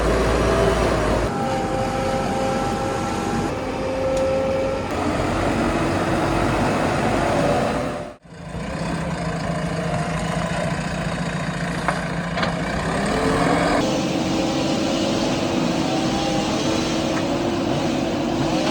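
Backhoe loader's diesel engine running under load, changing abruptly in pitch and level at several cuts, with a brief dropout about eight seconds in.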